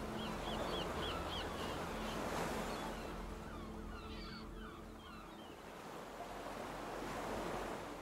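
Surf washing ashore, swelling and easing off in slow waves, with small birds chirping in short repeated notes over it.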